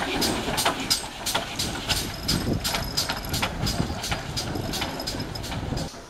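Steam locomotive 5239 'Goliath', a Great Western 2-8-0 tank engine, working away at low speed with steady exhaust beats, about three a second. The beats cut off abruptly near the end.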